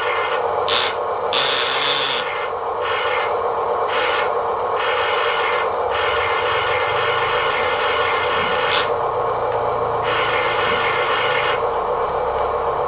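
Steady whine of a small motor with repeated rough scraping over it. The scraping comes in short bursts for the first few seconds, then in longer stretches.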